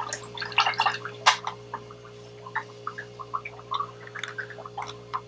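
A paintbrush worked in wet paint: a run of small, irregular wet clicks and squelches, busiest in the first second or so, over a steady low hum.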